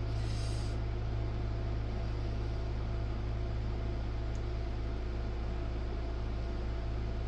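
A steady low hum with an even hiss over it, unchanging throughout, with a brief soft hiss in the first second.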